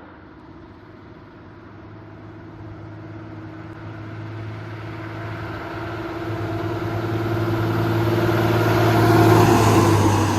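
A motor vehicle approaching with its engine running steadily, growing louder until it passes close about nine seconds in, then easing off slightly.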